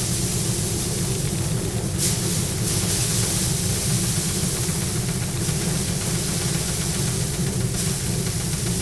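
Wire-loop drum paddy thresher running steadily, grain being beaten off bundles of rice straw held against the spinning drum: a continuous low hum with a rushing hiss on top that swells at times.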